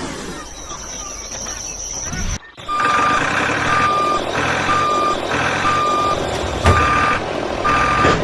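Vehicle reversing alarm beeping about once a second over a low engine rumble, starting after a brief break about two and a half seconds in. Before it there is a noisy rumble with a faint high whine.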